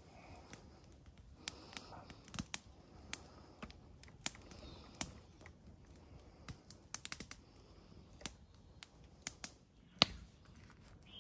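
Wood campfire burning down to coals, crackling with irregular sharp pops, the loudest near the end.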